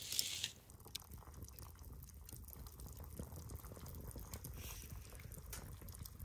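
Faint bubbling and ticking of water heating in a pot to boil sausages, with a short hiss right at the start.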